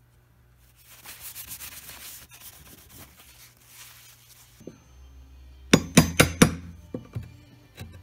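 A fingertip rubbing a small veneer patch down into wet glue on wood makes a soft scraping rustle for a few seconds. About six seconds in come a quick run of four or five sharp wooden knocks and clicks from a narrow chisel worked into a notch in the wood edge, with a few more clicks near the end.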